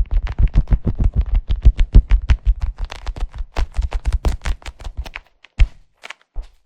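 Rapid tapping and scratching on a leather cushion, about six strokes a second, thinning to a few separate taps near the end.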